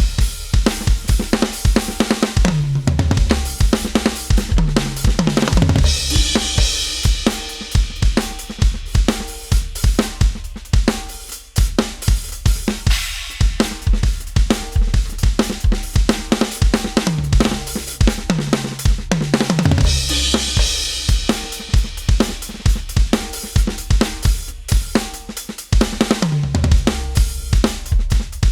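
Addictive Drums 2 sampled rock kit (the Heavy Dude preset) played live from an electronic drum kit: fast bass drum strokes under snare and hi-hat, tom fills stepping down in pitch, and cymbal crashes about six seconds in and again near twenty seconds.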